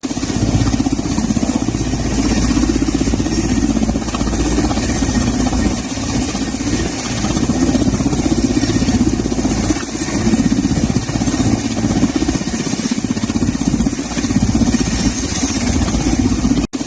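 An engine running steadily with a fast, even pulsing, cutting out for a split second near the end.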